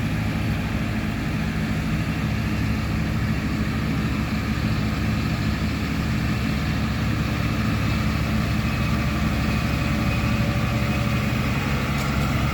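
A heavy engine running steadily at idle, a deep, even drone with no revving.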